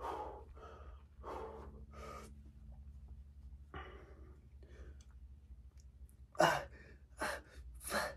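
A man breathing hard from exertion, short forceful exhales coming about once a second at first, a quieter stretch, then louder gasping breaths near the end: the strained breathing of a weight set pushed toward failure.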